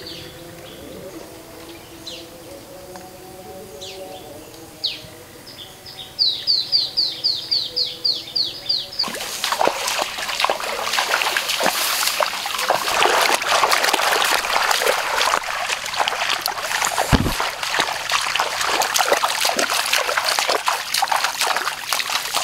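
Birds chirping, with one bird giving a quick series of about four high chirps a second. About nine seconds in, steady splashing and sloshing starts: a person wading through shallow muddy water.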